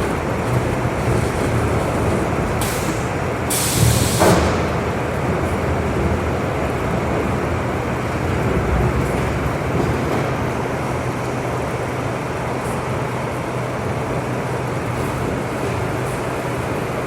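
Veneer peeling lathe running steadily with a low machine hum, a short hiss between two and three seconds in and a louder hissing burst about four seconds in.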